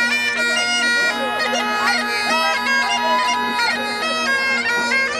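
Bagpipes playing a tune: a steady drone under a chanter melody that steps between held notes and quick short ornamental notes.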